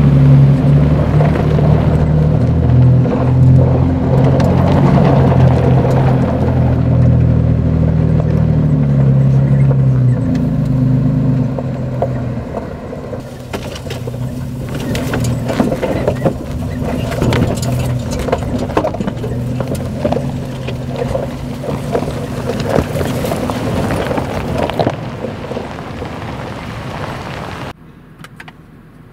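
2020 Toyota 4Runner TRD Pro's 4.0-litre V6 pulling up a dusty dirt hill under steady throttle. After about twelve seconds the engine eases off, and gravel and rocks crackle under the tyres as it comes back down. Near the end the sound drops away sharply.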